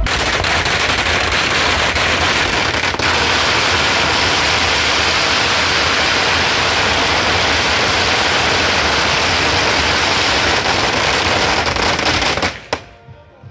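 A long string of firecrackers going off in one dense, unbroken crackle of rapid bangs, cutting off abruptly about twelve and a half seconds in.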